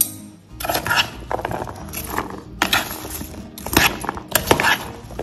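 Metal spoon stirring chopped salad vegetables and fruit in a bowl: irregular clinks and scrapes of the spoon against the bowl as the pieces are turned over, coming every second or so and busiest in the second half, mixing the salad with the squeezed lime juice.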